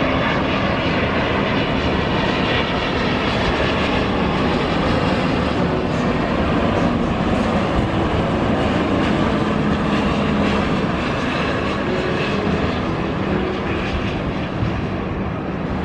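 Airbus A350's Rolls-Royce Trent XWB turbofans on final approach, a steady jet rumble as the airliner descends with landing gear down, easing slightly near the end.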